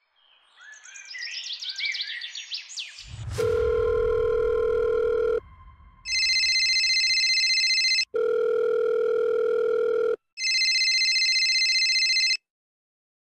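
Mobile phone ringing with an electronic ringtone that alternates a lower steady tone with a higher, buzzier tone, each about two seconds long, four blocks in all. A short run of rising chirps comes before the ringing starts.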